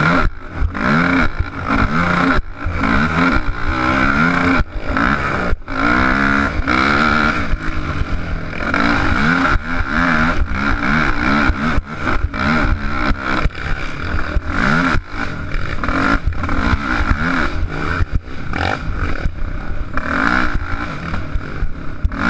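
Race quad's engine revving up and falling back again and again as it is ridden hard over a rough dirt track, with frequent knocks and rattles from the ground and buffeting on the mounted camera.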